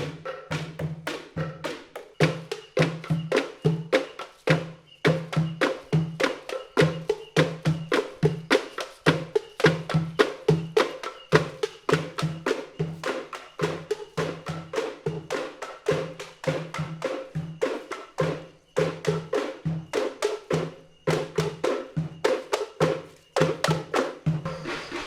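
Patrol sahur percussion ensemble playing a fast, steady, repeating rhythm: a low pitched drum beat under dense wooden knocking strikes.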